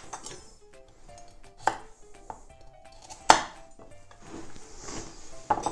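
Chef's knife cutting the ends off carrots on a wooden cutting board: three sharp knocks of the blade striking the board, spaced about one and a half to two seconds apart, the middle one loudest, with fainter clicks of handling between.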